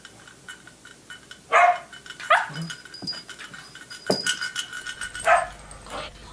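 A puppy barking: a few short, sharp barks, spaced about a second apart.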